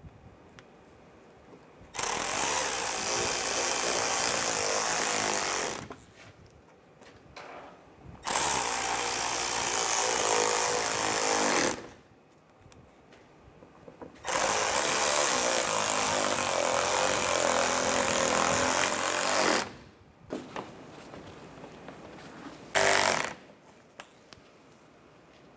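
Cordless ratchet running screws into a car's plastic underbody panel to tighten it back in place. There are three long runs of several seconds each, then a short burst near the end.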